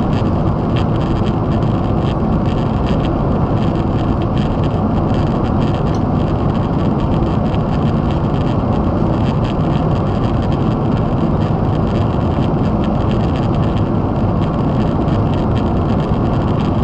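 Boeing 777 cabin noise in cruise flight: the jet engines and the airflow over the fuselage make a steady, deep, even rush heard from a window seat.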